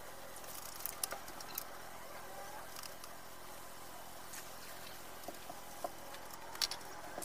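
Meat and paste frying in a steel wok, a steady sizzle with scattered clinks of a metal ladle against the pan. Water is poured in near the end.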